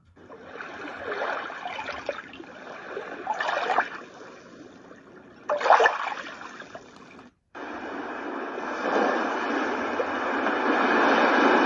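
White noise machine playing a recorded ocean-surf sound: washes of rushing noise swell and fade every couple of seconds. A little past seven seconds in it cuts out for a moment as the sound setting changes, and a steadier rushing noise takes over, slowly growing louder.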